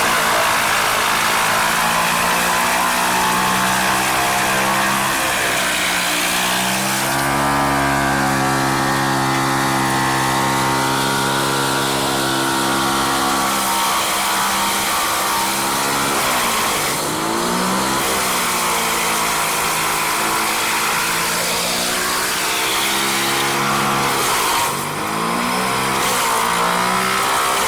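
An engine running under changing load, its pitch holding steady for several seconds and then dipping and rising again several times.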